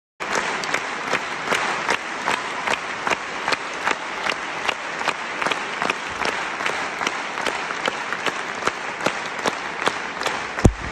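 Concert-hall audience applauding, with one pair of hands clapping close by in a steady beat of about three claps a second. Two low thumps near the end.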